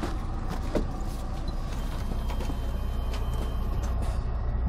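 Footsteps and scattered knocks and scuffs as someone climbs up into a semi-truck's cab, over a steady low rumble.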